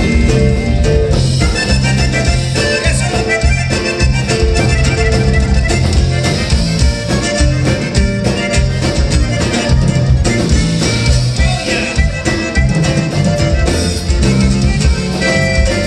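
Live conjunto band playing an instrumental passage through the PA: button accordion over twelve-string guitar, bass and drums, with a steady dance beat.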